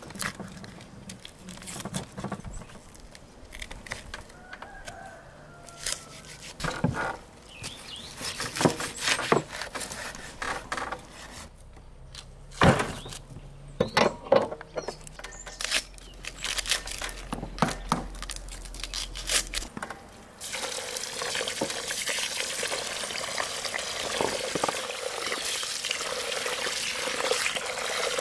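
Sharp knocks and scraping from knife work on a beef leg over a metal tray. About two-thirds of the way through, water starts pouring steadily into a large pot of rice as a hand swishes the grains to wash them.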